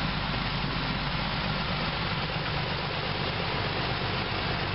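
Narrow-gauge diesel locomotive's engine idling, a steady low running sound without change.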